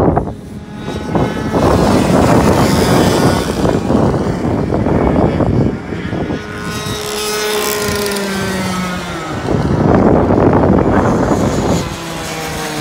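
Racing karts with 100cc two-stroke engines passing close by at speed, one after another, the engine noise swelling and fading with each pass. A clear falling engine note sounds about seven to nine seconds in as one kart goes by, and another kart's rising note comes in near the end.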